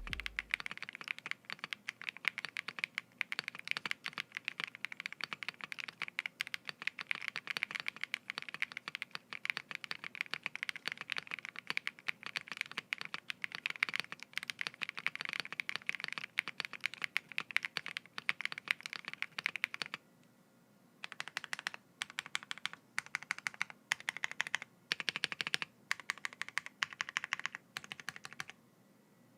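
Typing on a Wind Z75 mechanical keyboard fitted with Owlab London Fog switches, an aluminium plate with plate foam and PBT keycaps. Keystrokes run fast and continuously for about twenty seconds, stop for a moment, then come in short bursts separated by brief pauses.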